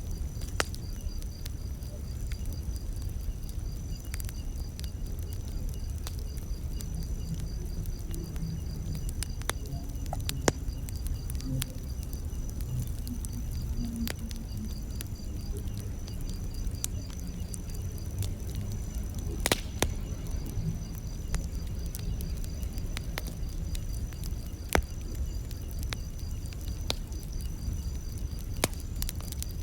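Campfire burning: a steady low rumble of flames with scattered sharp crackles and pops, the loudest about two-thirds of the way through. A steady high-pitched trill of night insects runs beneath it.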